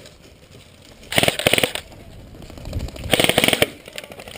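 Airsoft gun firing two short full-auto bursts, a rapid string of shots about a second in and another about three seconds in.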